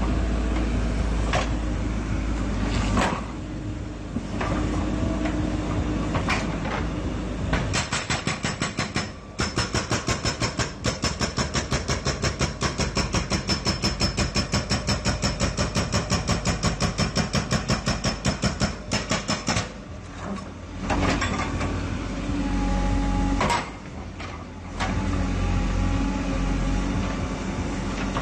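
Helicopter running loudly, with a fast, even pulsing of about four to five beats a second lasting some eleven seconds in the middle. Several single sharp bangs come before and after the pulsing.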